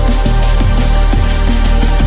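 Background electronic music with a fast beat and a heavy bass line of repeated falling slides.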